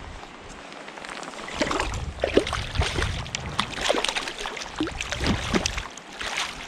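Close water splashing and gurgling in short, irregular bursts from about a second and a half in, over a low wind rumble on the microphone.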